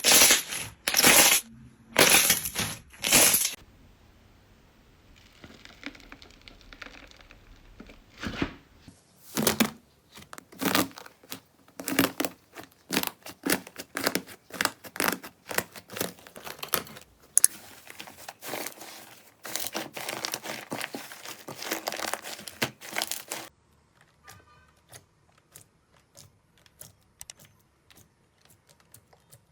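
Slime being squeezed and poked by hand, giving crackling, popping strokes. A few loud squishes come at the start, a long dense run of crackling fills the middle, and it turns faint near the end.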